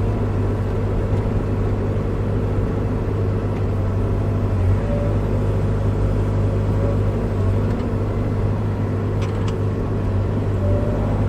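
Bobcat E55 mini excavator's diesel engine running steadily, with an even hum throughout, heard from inside the cab.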